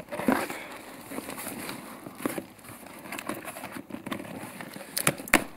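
Cardboard box flaps being handled and opened, with bubble-wrap packing rustling and crinkling inside, and a couple of sharp clicks or taps near the end.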